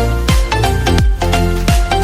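Background music with a steady electronic dance beat: punchy kick drums about three times a second under a synth melody.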